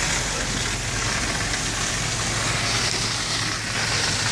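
An engine running steadily at idle, with a steady hiss over it.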